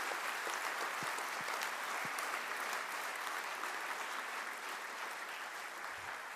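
Audience applauding: many hands clapping steadily, the applause slowly dying down toward the end.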